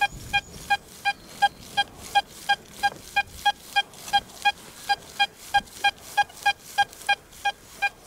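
XP Deus II metal detector target tone in the Sensitive Full Tone program, heard through the detector's speaker: a steady run of short beeps, all at one pitch, about three a second, as the coil passes back and forth over a buried coin. The signal is bright and clean, the sign of a good non-ferrous target, which here is a worn silver sixpence.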